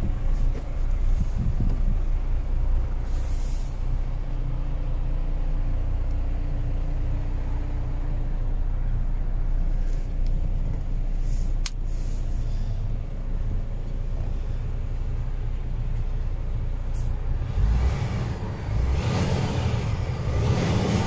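MAN TGX 26.560 truck's 12.4-litre inline-six diesel idling steadily, with short air hisses from the truck's air system twice and a louder rush of noise near the end.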